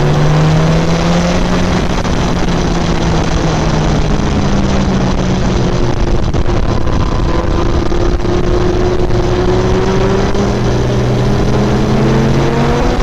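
BMW S1000RR's inline-four engine running under way. Its pitch holds steady at first, is partly buried in wind rush in the middle, and climbs near the end as the bike accelerates.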